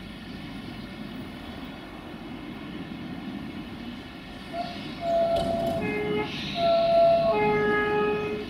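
060-DA (LDE2100) diesel-electric freight locomotive approaching with its Sulzer diesel running as a steady low rumble. From about halfway in it sounds its horn in four blasts that alternate between a higher and a lower note.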